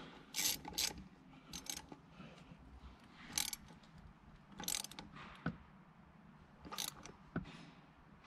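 Small hand ratchet clicking in a handful of short runs as a Torx bolt on the short shifter's linkage rod is tightened.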